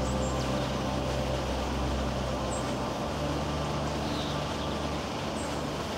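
Steady outdoor background hiss with a low hum underneath that shifts about three seconds in and stops about five seconds in, and a few faint high bird chirps.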